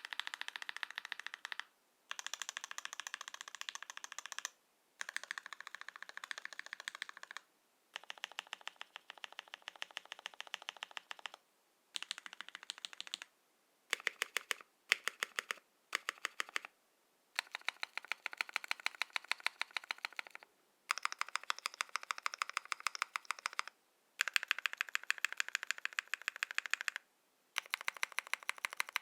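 Typing on an Ikki68 Aurora mechanical keyboard with lubed Gateron X linear switches, an aluminium plate and GMK keycaps. Fast runs of keystrokes last two to four seconds each with short pauses between, and a few slower, sharper strokes come around the middle.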